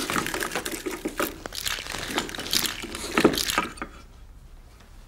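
Rapid crunching and crackling clicks as a toy dog puppet fusses with a dog bone at a sink. The sound stops suddenly about four seconds in.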